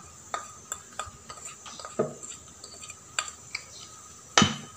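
Metal spoon scraping and clicking against a plastic seasoning container while scooping out ground pepper, in a run of light irregular clicks. A louder clack comes near the end.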